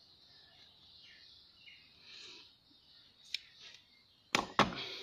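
Quiet room hiss, then a small click and two sharp clicks near the end as metal hand tools and pump parts are handled on a workbench.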